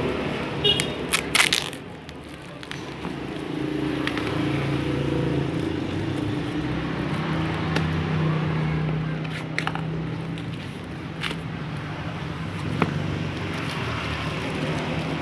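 A few sharp crackles and clicks of the delivery package being handled, then a steady low hum of vehicle traffic in the background.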